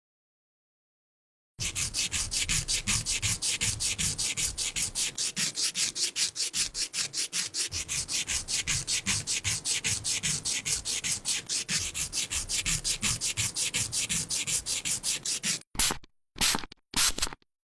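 Rapid back-and-forth rubbing strokes, about six a second, mostly a high hiss. They start about one and a half seconds in and, near the end, break into a few separate short strokes.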